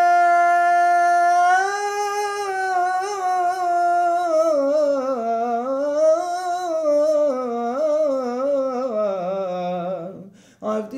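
A man's voice chanting haftarah cantillation in the Constantine Jewish tradition, drawn out into one long wordless melisma. He holds a high note for about two seconds, then winds through ornaments that sink gradually lower, and breaks off about ten seconds in.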